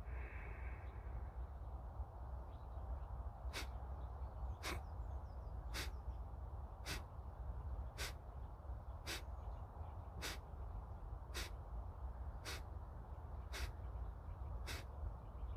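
Kapalbhati breathing: short, forceful exhalations through the nose, pumped by the belly, about one a second, eleven in all, beginning a few seconds in. They sound over a steady low rumble.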